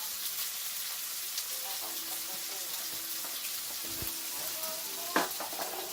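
Food sizzling as it fries in a pan, a steady high hiss, with one sharp knock about five seconds in.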